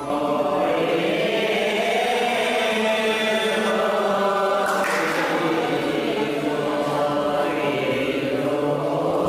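A group of voices chanting a devotional verse in unison on long held notes: the gayan singing of an Assamese bhaona.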